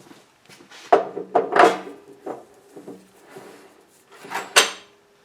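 Several clunks and knocks of metal lathe parts being handled, a few with a short ringing after them; the loudest knock comes about four and a half seconds in.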